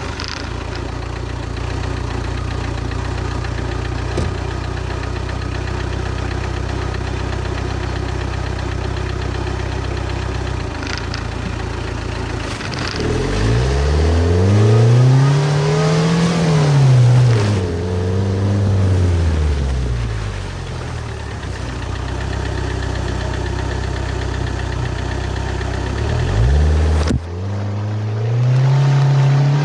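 Car engine idling steadily just after being started, then revved as the car pulls away: the pitch rises and falls in two swells about halfway through, settles back to an even idle, and climbs again near the end.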